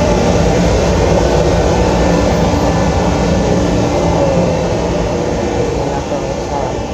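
Steady drone of a ferry's engines and machinery inside the passenger cabin, with a low hum; it eases a little near the end.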